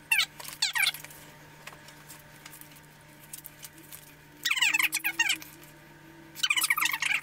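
High-pitched, squeaky voice chattering in three short bursts, like speech played back fast-forwarded. It comes once in the first second, again about halfway through, and again near the end.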